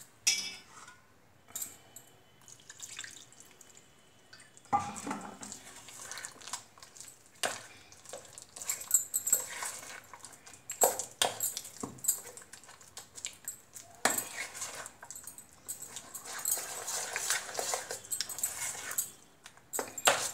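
A hand squishing and mixing thick, wet wheat-flour and jaggery batter in a steel bowl: irregular squelching with scattered sharper clicks.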